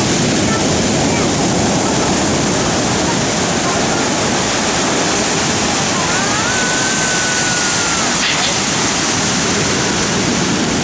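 Storm surf: heavy waves breaking and churning in a steady, loud rush of water noise.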